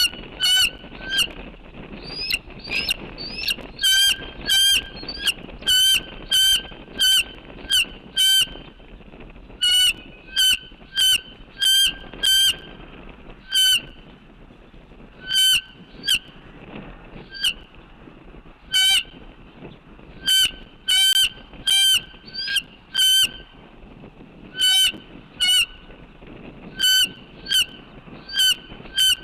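Geese honking repeatedly: short, loud single honks roughly a second apart, in bouts with brief pauses, over a steady low background noise.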